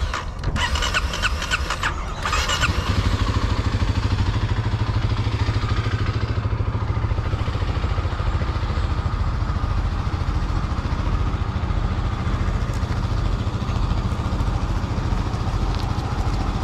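Kawasaki KLX300's single-cylinder four-stroke engine cranking on the electric starter for about two seconds, then catching about three seconds in and settling into a steady idle.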